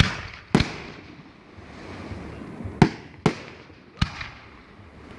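Aerial firework shells bursting: five sharp bangs, two close together at the start and three more in the second half, each trailing off after the blast.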